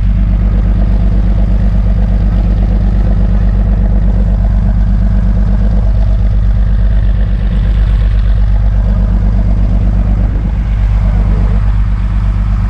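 Fishing boat's engine running steadily under way: a loud, low drone with a fast, even pulse.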